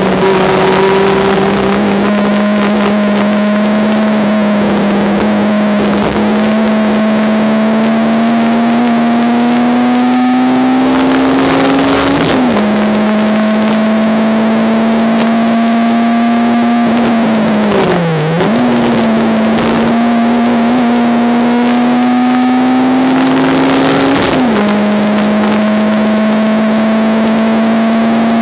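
Honda Civic race car's engine pulling hard under load, its pitch climbing slowly through each gear. It drops sharply at upshifts about twelve and twenty-four seconds in, with a brief dip and recovery around eighteen seconds in. The recording is harsh and distorted.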